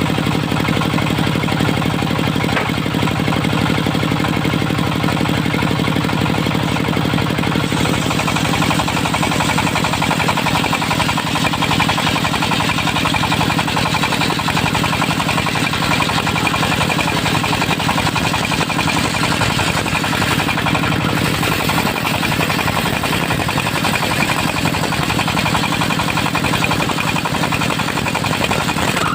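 Dongfeng diesel engine of a mobile circular sawmill running steadily with a rapid knocking beat. About eight seconds in the sound changes, with more high-pitched noise.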